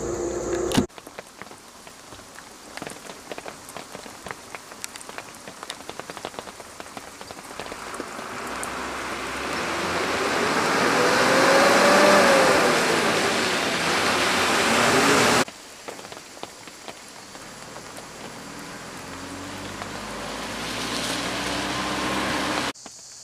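Rain pattering steadily on a wet road, with an Ashok Leyland bus's diesel engine drawing close. The noise swells to a peak about twelve seconds in, the engine note rising and then falling in pitch, and cuts off sharply a few seconds later. A quieter stretch of rain and distant traffic then builds again.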